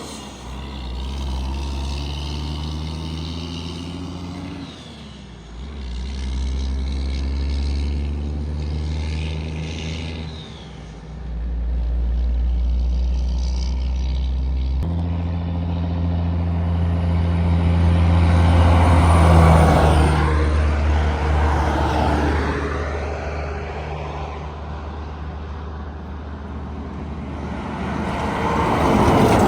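Semi-trucks passing on a highway: low diesel engine hum and tyre noise that swell as each truck goes by, loudest about twenty seconds in and again near the end.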